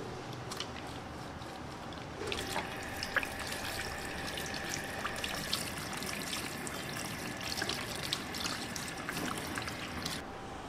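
Water running and spattering, switched on suddenly about two seconds in and cut off near the end.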